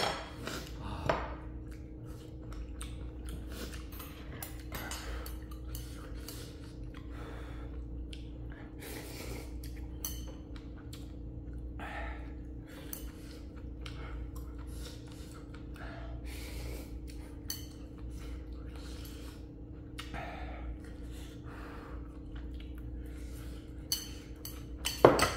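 Eating ramen noodles: chewing and small mouth noises, with utensils clinking and knocking against the bowl, a few louder knocks near the start and near the end, over a steady low hum.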